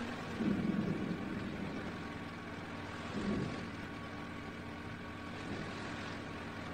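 Low rumbling of the erupting Anak Krakatau volcano, steady, with louder swells about half a second in and again about three seconds in.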